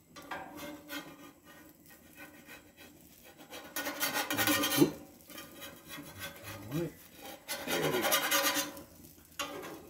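Metal spatula scraping across the steel plate of a flat iron griddle as it slides under pancakes to turn them, two rough scrapes about four and eight seconds in, with lighter rubbing between.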